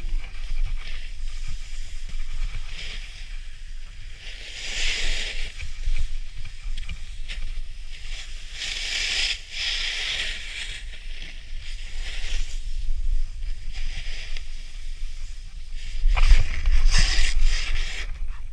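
Snowboard edge scraping and hissing across groomed snow during carved turns, with three louder scrapes about 5, 9 and 16 seconds in, the last the loudest. A constant low wind rumble on the microphone runs underneath.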